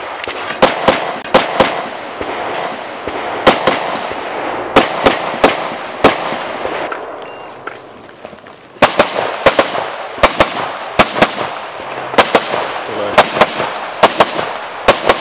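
Pistol gunfire: rapid strings of sharp handgun shots, many fired in quick pairs, each with a short echo. The shooting stops for about two seconds past the middle, then a second string follows.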